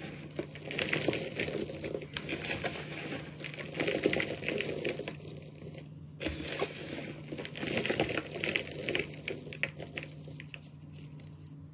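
Hands crushing and rubbing a mound of gym chalk powder, a dense crunching crackle that stops briefly about six seconds in.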